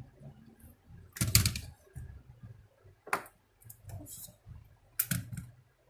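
Sharp plastic clicks and small knocks of laptop parts being handled during disassembly: a loud cluster about a second in, then single clicks near the middle and near the end.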